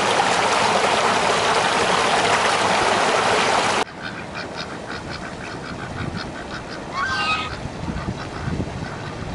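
Water gushing over a small rock cascade, a steady loud rush that cuts off suddenly just under four seconds in. After that, domestic ducks on a pond are quacking in short repeated calls, with one louder call about seven seconds in.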